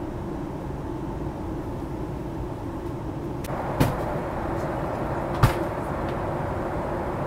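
Steady airliner cabin noise from the engines and rushing air, with a low hum, growing a little louder about halfway through. Two sharp knocks stand out, the second one the louder.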